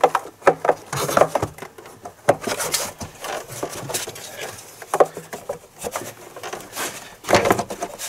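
Hard plastic intake duct and engine cover being worked into place by hand: irregular knocks, taps and scraping rubs of plastic against plastic and metal as it is lined up over its mounting posts.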